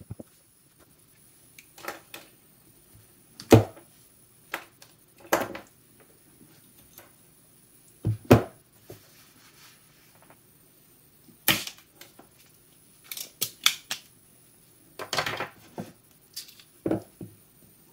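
Scattered clicks and knocks as a small brushed DC motor and a soldering iron are handled and set against a wooden workbench while wire leads are soldered to the motor's terminals. The knocks come at irregular intervals, with a busier run of them in the last few seconds.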